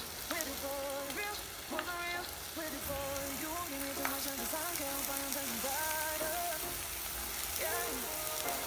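Onions and spices frying in a pan, sizzling as pieces of raw mutton are put in, with a few sharp clicks. A melodic music track plays over it.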